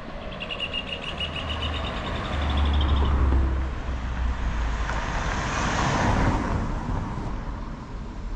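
Street traffic: a motor vehicle rumbles low for the first few seconds, then its rushing sound swells to a peak about six seconds in and fades. A thin, high steady whine sounds for the first three seconds.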